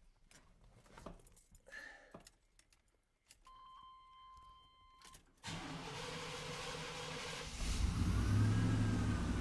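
Keys clicking, then a steady tone for about two seconds as the ignition is switched on, then the 1988 Chevy Silverado's 5.7 L 350 V8 cranking on the starter for about two seconds before it catches and runs, louder. It is the first start after a new MAP sensor was fitted, to check that the engine runs right.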